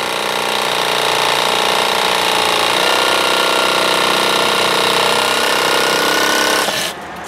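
Milwaukee M12 Fuel brushless Hackzall, a one-handed reciprocating saw fitted with a Diablo carbide-tipped pruning blade, running steadily as it cuts through a green rhododendron trunk. The blade is held in the cut without raking, so wood chips stay in it and the cut goes slowly, and the 12-volt battery is running low. The pitch drops slightly about three seconds in, and the saw stops abruptly shortly before the end.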